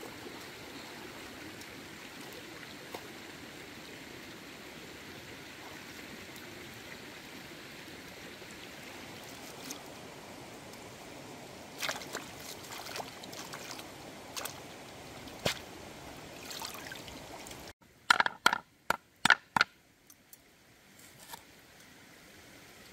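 Shallow river running over stones, with splashes as a basket of chillies is rinsed in the water. Near the end the water sound cuts off and a cleaver strikes a wooden chopping board in a quick run of about seven sharp knocks.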